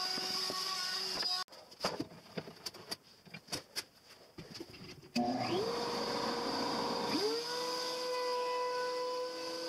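A few knocks and clicks of handling at the machine. About five seconds in, a motor switches on and its whine rises to a steady pitch, and about two seconds later a second motor starts and rises the same way. This is the DeWalt DW735 thickness planer and its dust extraction spinning up to speed and running without cutting.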